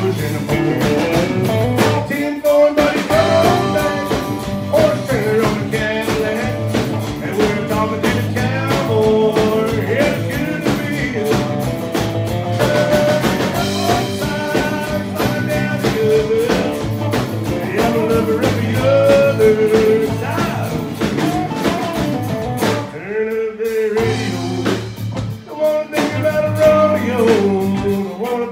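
Live country band playing with electric and acoustic guitars, electric bass and drum kit under a singing lead line. The band stops for about a second near the end, then comes back in.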